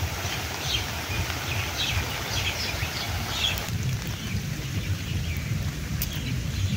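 Outdoor ambience as a rain shower tails off into light drizzle: a steady low rumble, with small birds chirping repeatedly over it until the sound changes at a cut a little past halfway.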